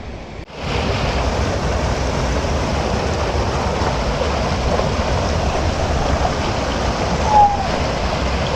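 Steady rush of flowing water, starting abruptly about half a second in. Near the end there is one short, falling whistle-like tone.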